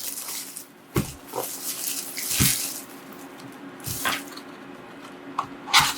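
Cardboard trading-card box packaging being handled and opened: a rustling, hissing scrape about two seconds in, with a few light knocks.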